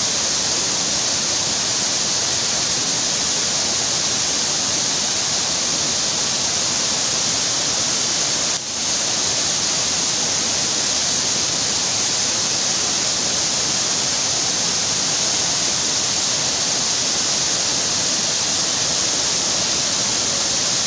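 Steady rushing of muddy landslide runoff and a waterfall pouring down a rocky slope, swollen by heavy rain. The rushing dips briefly about eight and a half seconds in.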